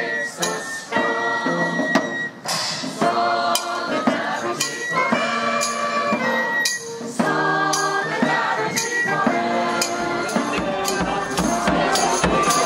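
Music: a choir singing over a steady percussive beat, with a low bass part joining near the end.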